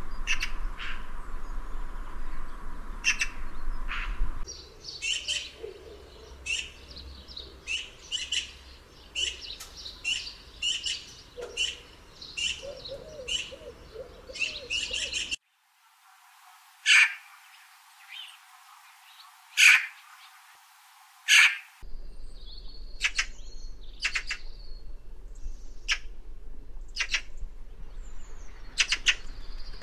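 Eurasian magpie calling: short sharp calls repeated about once or twice a second, with three louder single calls in the middle.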